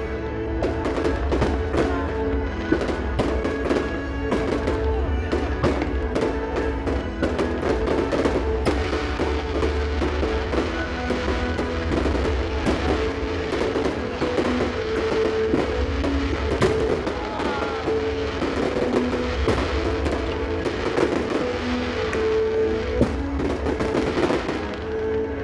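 Music with drums playing steadily, mixed with the repeated bangs and crackle of fireworks bursting.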